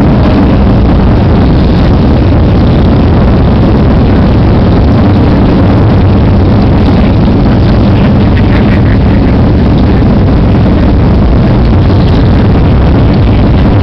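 Buell motorcycle engine running steadily at low revs, loud and close to the microphone as the bike rolls slowly along.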